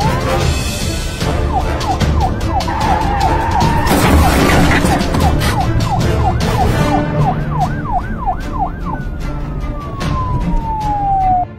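Police siren sound effect: quick up-and-down yelps repeating about twice a second, climbing higher about seven seconds in, then one long falling wail near the end. A noisy burst comes about four seconds in.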